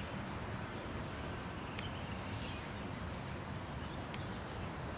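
Outdoor ambience: a small bird chirping over and over, one short high falling note roughly every 0.7 seconds, over a steady low background rumble.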